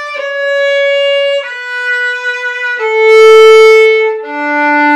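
Violin playing a slow descending phrase of long, sustained notes, each drawn with a whole bow stroke; the note about three seconds in is the loudest, and a lower note starts just after four seconds.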